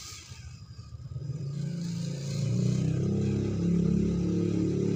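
RC scale crawler jeep driving, its motor sound swelling into louder, engine-like revving about two and a half seconds in.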